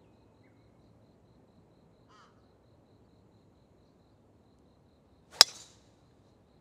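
A single sharp crack of a golf club striking the ball on a full swing about five seconds in, with a brief ring after it. A faint short bird call comes about two seconds in.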